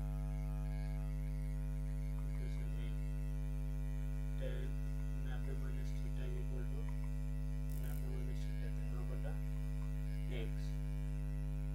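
Steady electrical mains hum, a low buzz with a ladder of overtones that does not change, with faint scattered small sounds over it.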